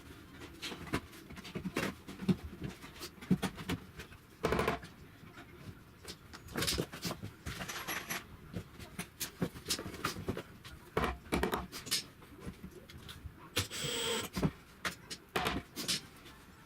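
Irregular knocks, taps and scrapes of a timber floor joist being worked into a steel joist hanger, with a few louder thumps. The hanger is a tight fit and is being stretched open to take the joist.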